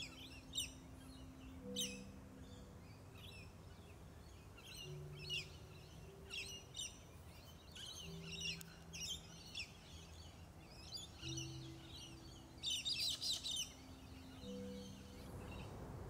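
Birds chirping: short, high, quick calls, repeated every second or two, with a rapid run of them about thirteen seconds in.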